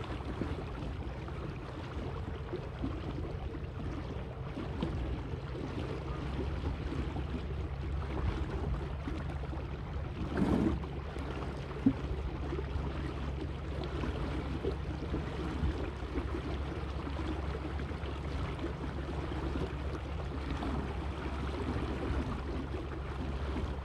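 Water washing and lapping along the hull of a small boat moving slowly under an electric outboard, over a steady low hum. A brief louder wash comes about ten seconds in, then a single click.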